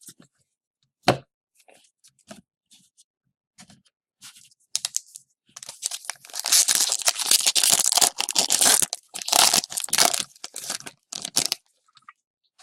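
Foil trading-card pack wrapper and cards being handled, with a sharp click about a second in, then several seconds of dense crinkling and tearing.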